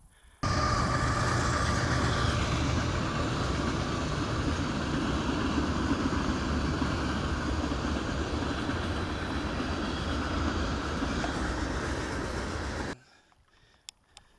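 A loud, steady rumble and rushing noise that cuts in and out abruptly, with a thin high squeal in its first couple of seconds.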